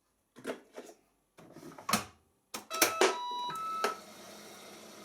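Clicks and knocks, then a short run of electronic beeps from a Siemens iQ washing machine's control panel as the wash programme is started. A steady low hiss follows as the machine begins.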